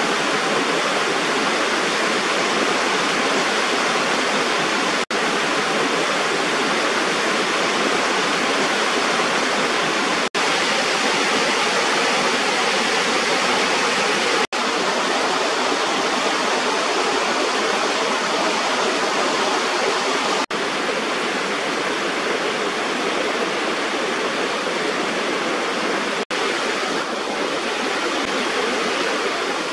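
Water pouring over a small waterfall at a rubber irrigation weir: a steady, constant rushing, broken by a few momentary gaps.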